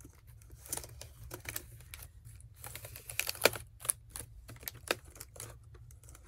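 HP Pavilion dv5 laptop keyboard being pressed down into its bay, giving a run of irregular plastic clicks and key clacks, the loudest about three and a half seconds in.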